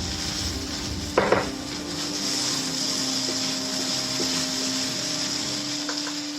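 Fried rice being stirred in a pan: a spatula scrapes and knocks against the pan over a steady hiss and hum. There is one louder clatter just over a second in and a few light taps later.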